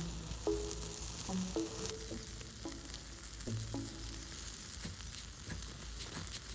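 Food sizzling over glowing sawdust-briquette (Ogalite) charcoal: a steady fine hiss with many small crackles. Short, soft pitched notes come and go through it.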